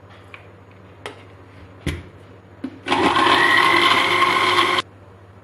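Electric kitchen blender running for about two seconds, blending milk, mango and ice cubes into a milkshake; its whine rises a little as it spins up, then it cuts off suddenly. A few light knocks come before it.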